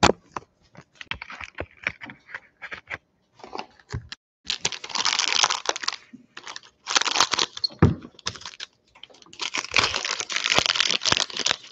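Foil wrapper of a Panini Optic football card pack crinkling and tearing as it is cut open with scissors and the cards are pulled out. Before that come a run of small clicks and taps, then three stretches of crinkling.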